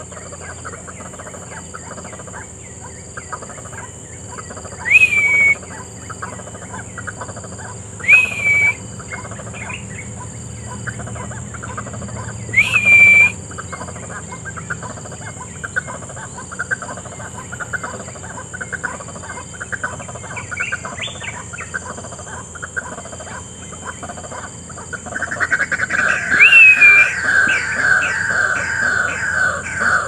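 White-breasted waterhens calling. There are loud single calls about 5, 8 and 13 seconds in, then from about 25 seconds a fast, rapidly repeated series of calls.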